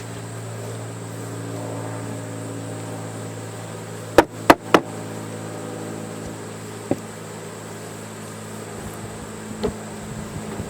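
A mass of honeybees buzzing in a steady low hum. About four seconds in come three sharp knocks in quick succession, the loudest sounds here, with two lighter knocks later.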